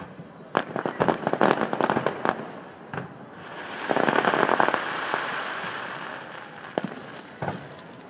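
Aerial fireworks going off: a quick run of sharp bangs, then about three and a half seconds in a dense spell of crackling that fades out over a few seconds, and two single bangs near the end.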